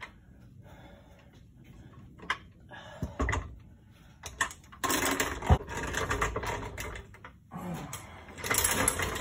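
Metal clattering and knocking from work under a car during a transmission removal: a few separate knocks, then a couple of seconds of loud rapid clatter with one heavy thump about five and a half seconds in, and more clatter near the end.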